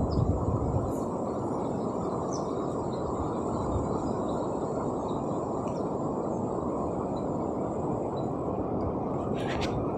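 Steady rushing of water with wind, a dense even noise with a few low gusts near the start. Short faint high chirps sound over it now and then.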